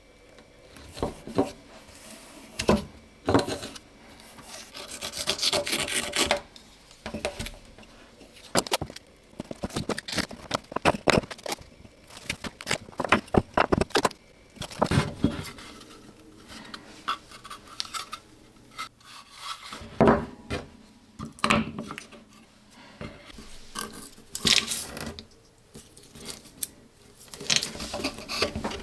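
Irregular knocks, taps and rubbing scrapes from wooden MDF mold pieces being handled and worked on a bench.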